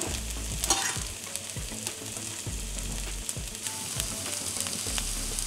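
Zucchini-cheese fritters frying in rapeseed oil in a pan, a steady sizzle. There is a short clatter a little under a second in.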